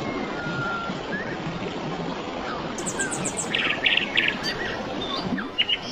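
Birds chirping and calling over a steady rush of flowing water. A short whistled note comes near the start, then quick trills of repeated chirps past the middle.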